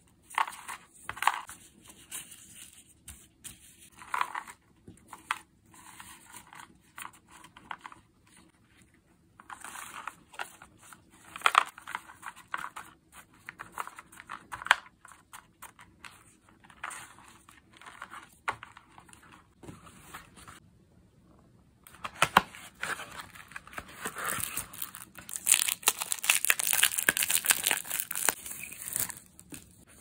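Paper stickers being shuffled and handled in short scattered rustles and light clicks, then a longer, louder crinkling of a clear plastic sticker sleeve near the end.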